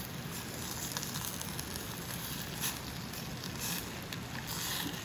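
Wood fire burning in a fire pit: a steady hiss with faint crackles.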